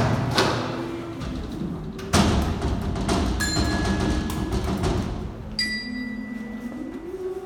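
Hand-made foley effects: a heavy hit about two seconds in that rings away slowly, then two bright ringing metallic strikes, over a low wavering tone that climbs in pitch near the end.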